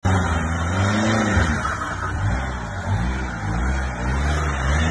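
Ford pickup truck's engine revving up and down as it crawls slowly over a rutted, rocky dirt track.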